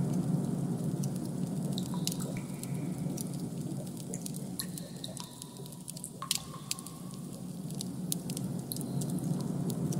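Designed ambient background soundscape: a steady low hum with scattered drip-like clicks and a few faint brief tones, one held for about a second just past the middle.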